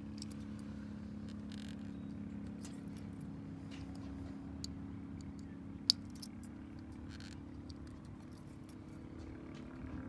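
Small screwdriver picking at a plastic ignition coil connector to release the wire terminals' locking clips: scattered faint clicks and scrapes, with one sharper click a little past halfway. A steady low hum runs underneath.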